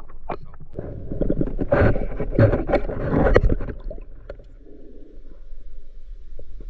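Muffled splashing and gurgling of water with scattered sharp clicks and knocks, loudest in the first half.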